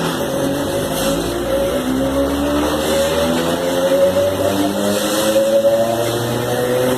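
CPTM Série 4400 electric multiple unit's traction motors and gearing, heard loudly on board as the train accelerates. The growl is a chord of several tones that climb steadily in pitch as speed builds.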